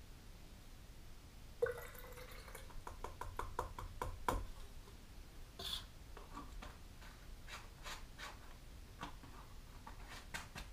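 Liquid dripping and trickling as it is poured between a small glass cup and a plastic squeeze bottle. A run of quick light clicks comes about two seconds in, followed by scattered taps and clicks of the bottle and its cap being handled.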